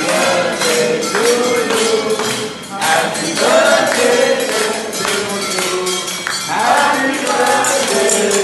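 A group of people singing a birthday song to a steadily jingling tambourine.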